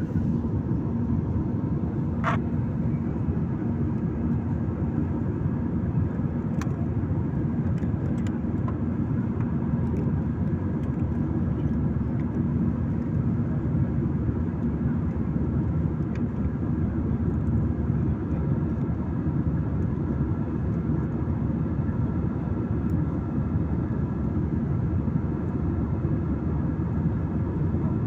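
Steady cabin noise of a jet airliner in flight, heard from a window seat: a constant low rush of engines and airflow with a faint steady hum.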